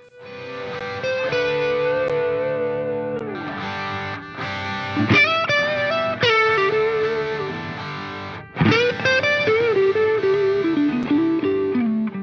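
Background music led by an effects-laden electric guitar, playing a slow melody of long, sliding notes over sustained chords.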